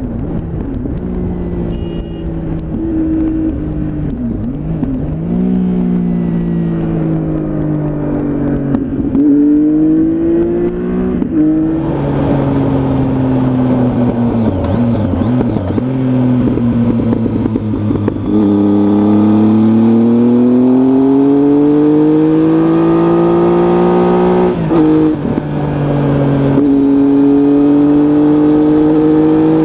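Triumph Tiger motorcycle engine under way, its note climbing and falling with speed. There are several sudden drops in pitch where gears are changed, and wind rush grows louder about halfway through.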